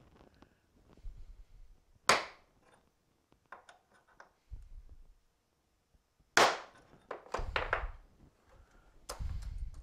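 Hammer striking a transfer punch to mark the original vise jaw's hole centres onto the new jaw: two sharp strikes, about two seconds in and just past six seconds in. Lighter clicks and handling knocks fall between them.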